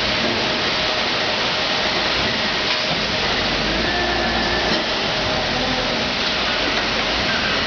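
Steady packaging-line machinery noise: a dense, even hiss with faint whining tones running through it, with no distinct strokes or impacts.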